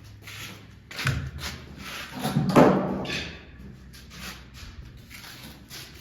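Knocks and thuds of a door being handled and fitted, with a sharp thud about a second in and the loudest, heaviest one about two and a half seconds in.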